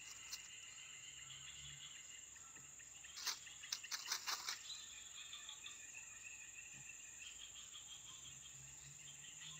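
Faint, steady chirping of crickets and other insects, with a short run of clicks and rustles about three to four seconds in.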